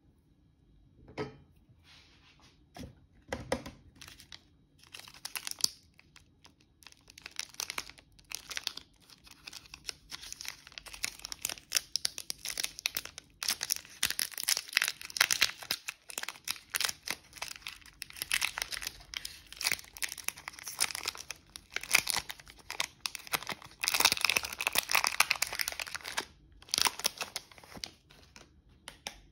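A plastic KitKat wrapper being torn open and unwrapped by hand, with dense crinkling and tearing that is loudest near the end. A few separate small crackles come first.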